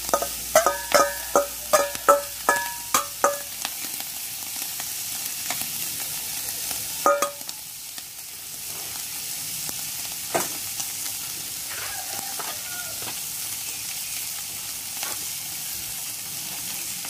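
Chicken sisig mixture sizzling in margarine in a hot wok. For the first three seconds or so, the metal bowl being emptied into the wok clanks about three times a second, each strike ringing. One more clank comes about seven seconds in.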